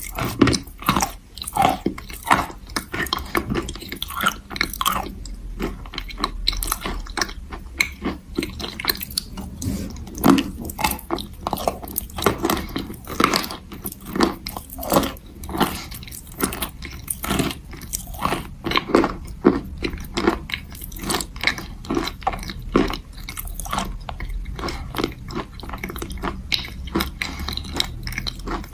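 Close-miked chewing of a hard chalk bar: a steady, irregular run of sharp crunches, several a second, as the chalk is bitten and ground down into a paste.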